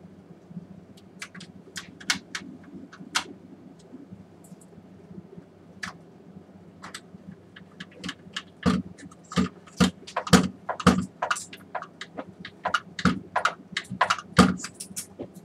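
Clicks, knocks and clatter of a screwdriver and the plastic housing and parts of an opened BenQ MP515 projector being worked on by hand: scattered sharp clicks at first, then a quicker run of louder knocks and thumps over the second half.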